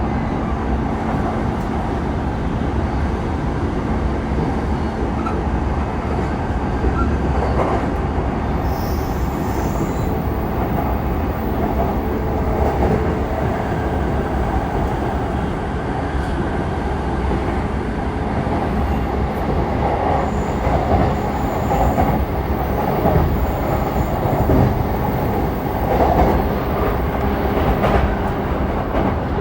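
Running noise of a JR East E233-3000 series electric multiple unit at speed, heard from inside the car: a steady rumble of wheels on rail with a few knocks.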